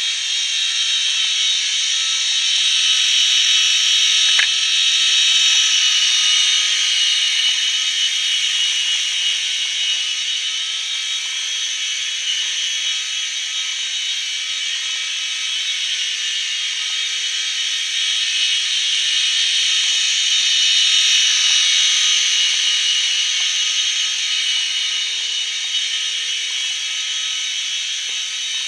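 Graupner Fun Chinook micro RC helicopter in flight: its small electric motors and twin rotors give a steady high-pitched whine. It swells louder a few seconds in and again about two-thirds of the way through, then eases back.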